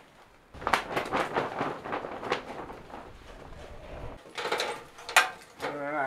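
Roofing membrane on a timber roof frame rustling and flapping in gusty wind, with wind rumbling on the microphone. A few sharp knocks follow toward the end, the loudest about five seconds in.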